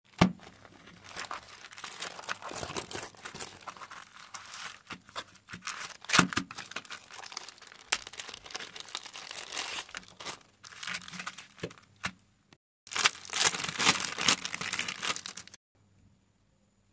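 Clear plastic packaging crinkling and rustling as a rolled diamond painting canvas with its plastic film and bagged drills is handled and unrolled, in uneven bursts with a louder stretch of crinkling near the end.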